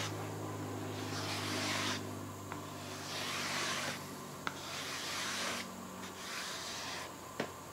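Scraper dragged across a wood panel, pulling off excess grain filler and working it into the open grain: four long scraping strokes about a second and a half apart, over a steady low hum.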